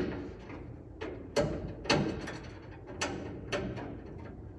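Clicks and light metallic clinks as a brass tee fitting on a nickel-copper brake line is worked into place, with four sharper clicks standing out in two pairs.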